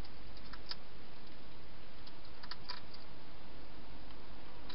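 Wild hedgehog eating from a bowl inside a plastic feeding box: small crisp clicks in two short clusters, about half a second in and around two and a half seconds in, over a steady hiss.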